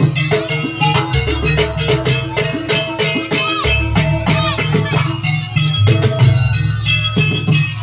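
Traditional East Javanese jaranan music played live: dense, rapid percussion with rattling over sustained low tones.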